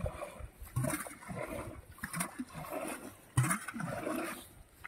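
Shallow muddy pond water sloshing and splashing in a string of irregular bursts, the strongest about three and a half seconds in.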